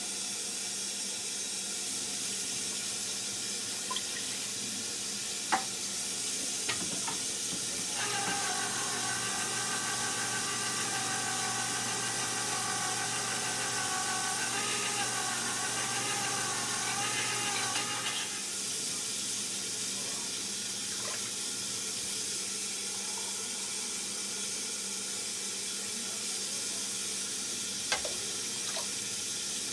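Beef broth and water poured from cans into a hot stainless-steel stew pot, with a steady hiss from the pot. Water runs for about ten seconds in the middle, and a can knocks sharply against the pot near the end.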